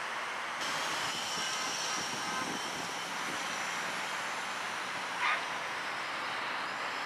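Small quadcopter's coreless motors giving a faint, wavering high whine over a steady outdoor hiss, with one brief louder sound about five seconds in.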